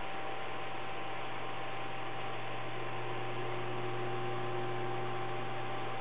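Steady low electrical hum with an even hiss and a thin steady whine above it. A faint second tone joins about halfway through. There are no calls, clicks or whistles.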